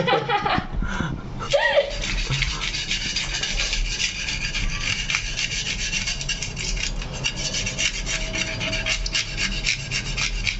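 Scales being scraped off a mangrove jack, in rapid, continuous scraping strokes.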